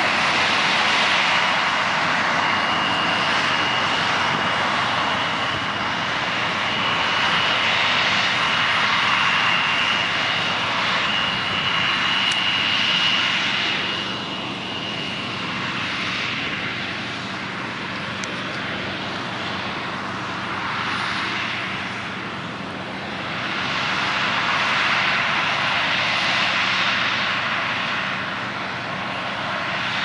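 Claas Lexion 750 combine harvester working in wheat: a steady heavy machine drone, with a thin high whine over it that stops about halfway through. The loudness dips and swells gently.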